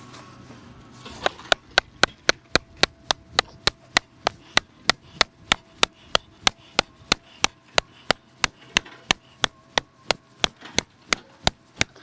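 A hammer striking the top of a wooden post, driving it into the ground: a long run of sharp, evenly spaced blows, about three to four a second, starting about a second in.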